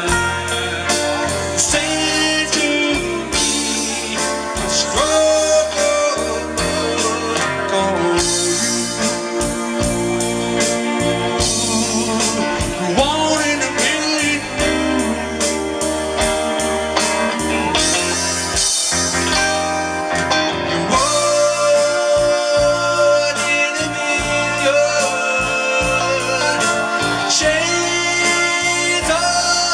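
Live band playing a blues-rock number: drum kit, electric keyboard and electric guitar.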